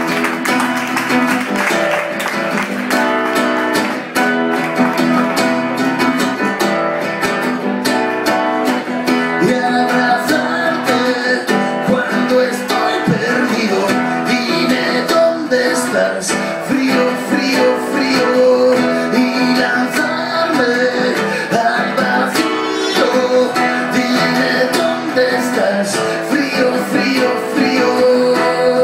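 Acoustic guitar played live, picking out notes and chords that ring on.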